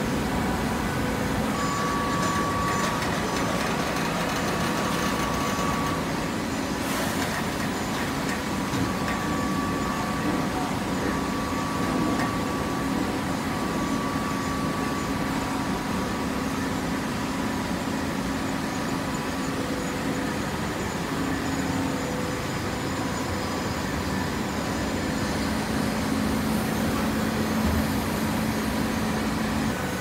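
TCM fully automatic horizontal hydraulic baler running: a steady machine hum with a few faint whining tones that come and go.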